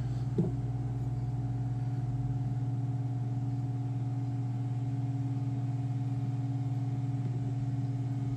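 Steady low hum of a running machine, unchanging in pitch and level.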